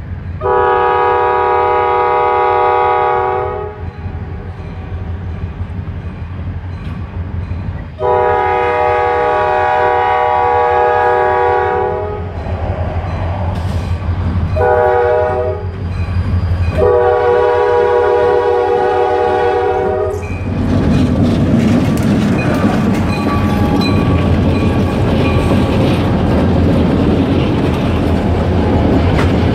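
EMD SD40-2 diesel locomotives sounding a multi-tone air horn in the grade-crossing pattern, long, long, short, long, as they approach. Then the lead unit passes close by, its two-stroke V16 diesel running and its wheels clattering on the rails.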